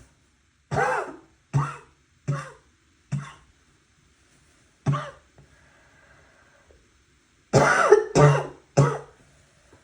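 A person coughing with a wet, barking cough: four coughs about a second apart, a single cough, then a louder run of three near the end.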